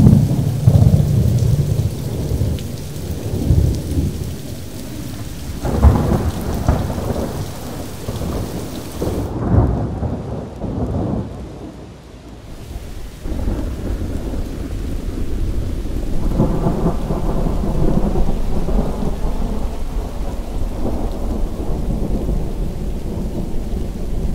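Steady rain with rolling rumbles of thunder that swell and fade, the loudest in the first ten seconds.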